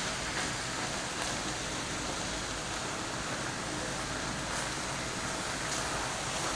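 Tofu and vegetables sizzling steadily in a hot stainless steel skillet, cooked without oil, with a few soft scrapes of a silicone spatula stirring them.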